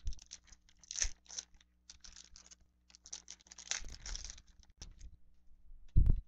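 Foil wrapper of a trading-card pack being torn open and crinkled, a run of short crackles, then a dull thump near the end.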